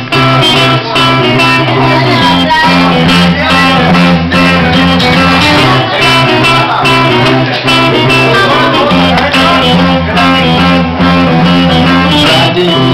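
A rock band playing live: electric guitars and bass guitar with drums, loud and continuous, in an instrumental opening before the vocals come in.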